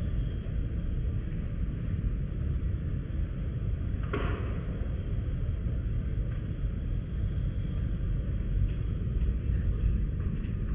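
Wind buffeting the microphone, heard as a steady, fluttering low rumble, with one brief louder sound about four seconds in.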